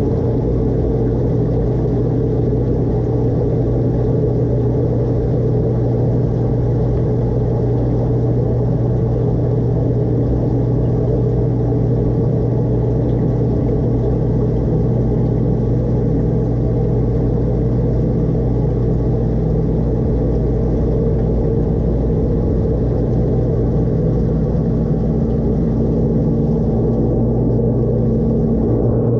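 Dishwasher wash pump running steadily during a normal cycle, heard from inside the tub: a constant motor hum under the rumble and hiss of water spraying against the walls and the camera.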